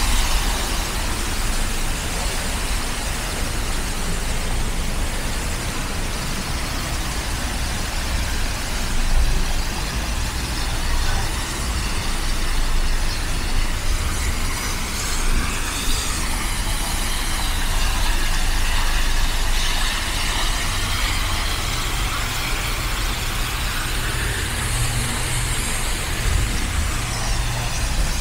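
Road traffic passing: motor vehicles running by in a steady rumble with no break.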